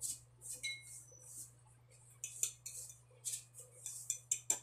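Salt shaker shaken over a bowl in short rapid shakes, the grains rattling in a run of hissy bursts that pause briefly partway through, with a few light clinks of a spoon against the bowl.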